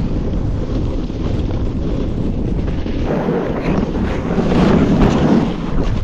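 Wind buffeting an action camera's microphone while snowboarding down a run, mixed with the snowboard sliding and scraping over the snow; the rush grows louder from about three seconds in.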